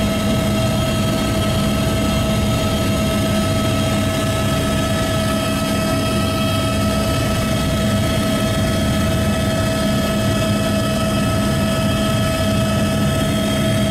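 Steady in-flight aircraft noise: a constant engine drone with several unchanging high whining tones over it.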